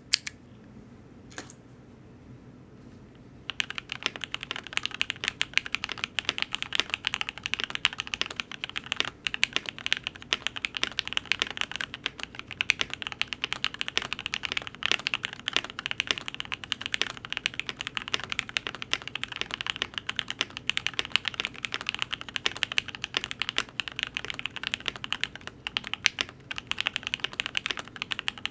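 Fast, continuous typing on a Cannon Keys Devastating TKL mechanical keyboard fitted with lubed and filmed Lavender switches, GMK keycaps and an FR4 plate. A single key click comes about a second in, and steady typing begins a few seconds in.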